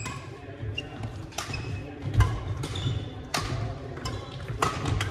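Badminton doubles rally: sharp cracks of rackets striking the shuttlecock roughly once a second, with sneakers squeaking and feet thudding on the hardwood gym floor.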